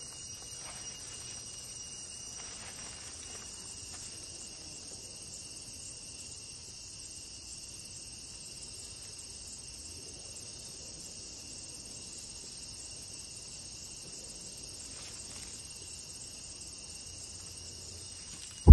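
A steady chorus of insects in summer woods, held at several high pitches throughout.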